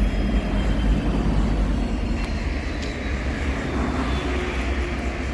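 EMD SD70 diesel-electric locomotive's 16-cylinder 710-G3 two-stroke turbocharged engine running, a steady low rumble. A faint high whine slowly falls in pitch over it.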